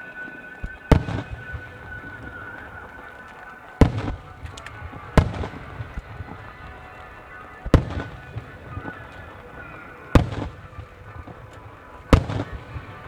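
Aerial firework shells bursting with six loud booms a second or two apart, each trailed by brief crackling, over music played for the show.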